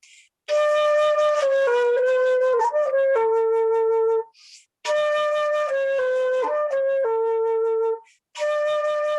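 Solo flute playing a slow, unaccompanied melody in three phrases, with a quick audible breath taken before each phrase.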